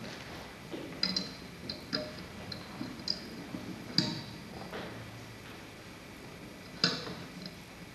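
Irregular light clicks and knocks over a steady room background, with sharper ones about one, four and seven seconds in.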